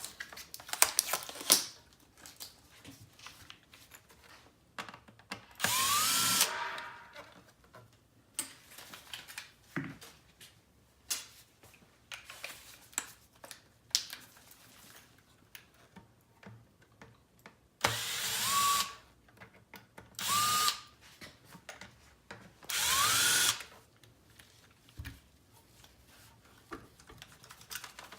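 Small cordless power screwdriver spinning in four short bursts, its whine rising as it spins up, while backing screws out of a car navigation unit's housing. Small clicks and rattles of handled parts come in between.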